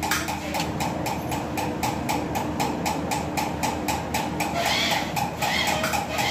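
A workshop machine running with a steady rhythmic clatter of about six beats a second, with a brief hiss about five seconds in.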